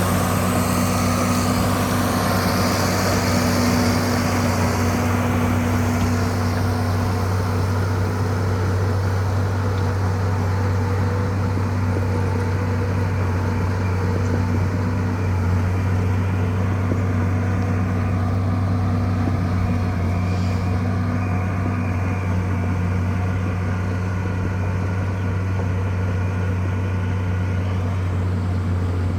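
Bulldozer's diesel engine running steadily, a low, even drone.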